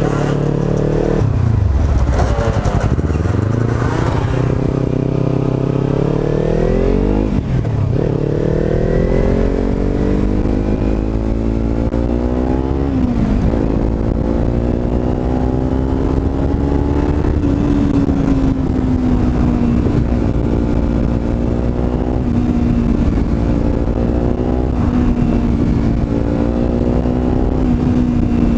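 Kawasaki motorcycle engine pulling away through the gears, its pitch climbing and dropping back at each of three upshifts, then settling to a steady cruise about halfway through.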